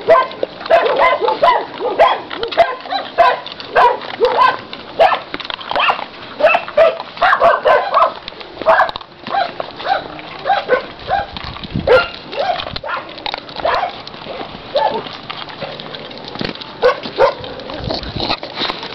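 Several dogs barking and yipping over one another, a dense run of short barks, several a second, thinning out after about nine seconds.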